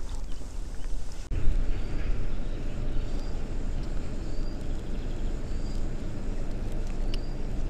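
Steady low rumble of wind and water around a small inflatable boat on a river. A faint, short, high chirp repeats about once a second.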